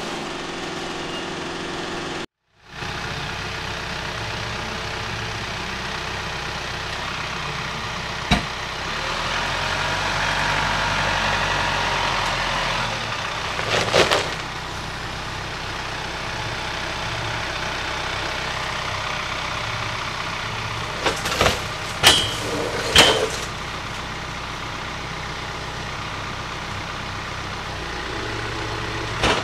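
A tractor running a PTO-driven wood chipper, then after a brief cut an engine running steadily. It swells louder for a few seconds around the middle, with a handful of sharp knocks and clanks in the later part.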